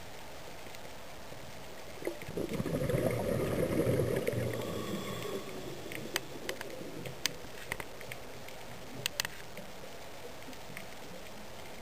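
Underwater recording: a burst of gurgling bubbles starts about two seconds in and lasts about three seconds, followed by a few short sharp clicks.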